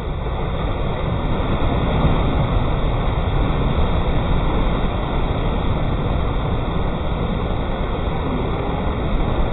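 Steady rushing noise of ocean surf mixed with wind buffeting the microphone.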